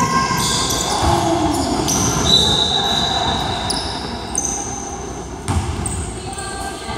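Basketball sneakers squeaking on a hardwood gym floor in many short, high squeals, with a basketball bouncing, the clearest thump about five and a half seconds in. It all echoes in the large gym hall.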